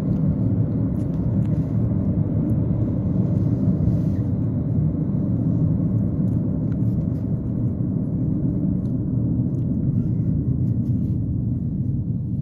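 Steady low rumble of a car driving: engine and tyre noise on the road.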